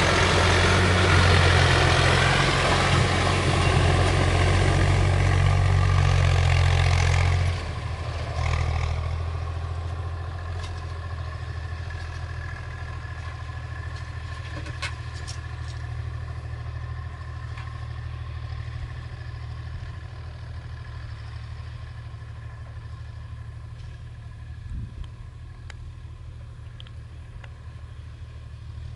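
Heavy diesel machinery engine running loud, then dropping off sharply about seven seconds in and running on at a lower, steady level that slowly fades.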